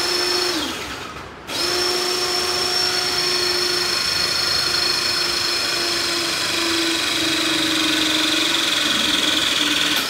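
Battery-powered hydraulic crimping tool's motor pump running as it crimps a lug onto a heavy power cable: a short run that winds down and stops about a second in, then a long steady whine whose pitch slowly sinks as it presses, cutting off at the end.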